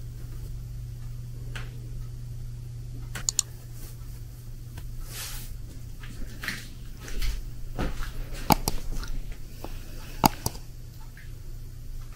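Handling noise from an office chair and its memory foam seat cushion: scattered taps, rustles and clicks, growing busier in the second half with a couple of sharp clicks, over a steady low hum.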